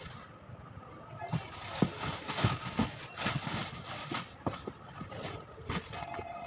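Plastic carrier bags rustling and crinkling, with irregular crackles and light knocks, as items are packed into a cardboard box; the handling starts about a second in.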